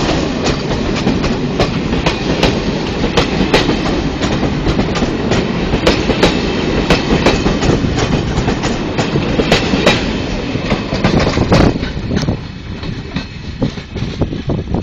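Passenger train coaches rolling past at close range: a steady rumble with wheels clicking over the rail joints in an irregular clatter. About twelve seconds in, the noise drops off as the last coach passes and the train moves away.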